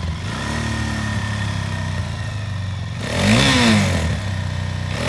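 2006 Suzuki QuadSport LT-Z400's single-cylinder four-stroke engine idling, then blipped once about three seconds in, the revs rising and dropping back to idle. Another blip starts right at the end.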